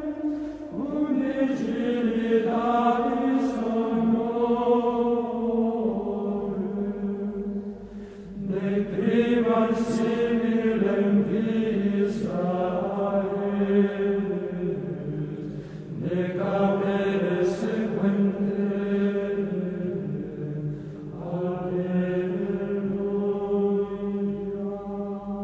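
Background music of chanting voices, singing long held notes in phrases several seconds long with brief breaks between them.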